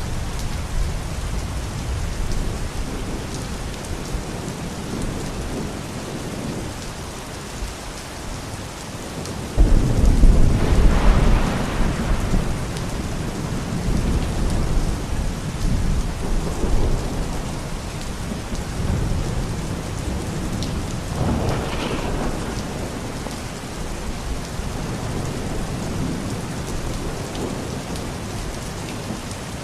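Steady rain falling, with a sudden loud clap of thunder about a third of the way through that rumbles on for a few seconds, and a weaker roll of thunder about two-thirds through.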